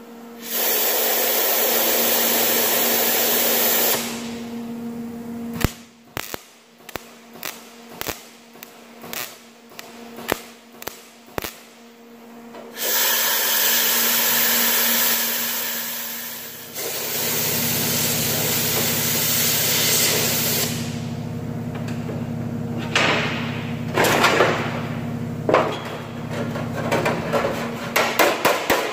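MIG welder welding a hinge onto a steel truck bonnet panel: long steady stretches of arc, with a string of short tack zaps between them. Just before the end a hammer starts tapping quickly on the metal.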